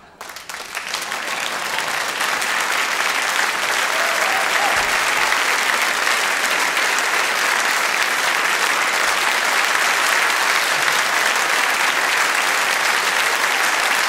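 Theatre audience applauding: the clapping starts abruptly, swells over the first couple of seconds and then holds as steady, dense applause.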